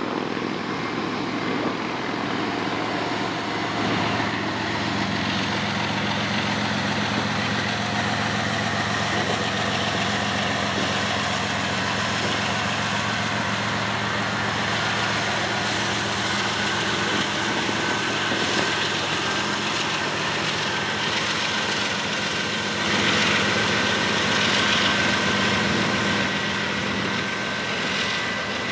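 Diesel-electric freight locomotives approaching under power: a steady low engine drone that gets louder over the last few seconds as the lead units of a double-stack container train draw near.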